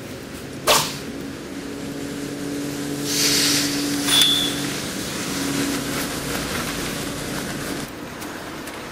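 Dubbed katana sound effects: a sharp strike about a second in, then a swelling whoosh and a short high metallic ring as the sword is brought to the scabbard.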